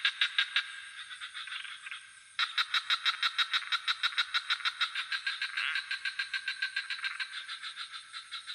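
A frog chorus calling in fast, even pulses of about six a second, over a steady high trill of crickets. Just over two seconds in, the pulsing fades briefly, then comes back suddenly and louder.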